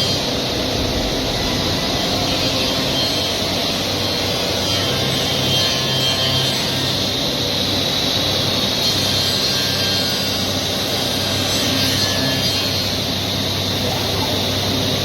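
Five-axis CNC wood router running steadily, its spindle cutter machining wood, with a steady low machine hum beneath.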